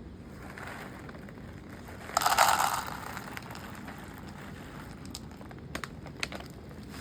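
A brief, loud crinkling rustle about two seconds in, followed by a few faint clicks.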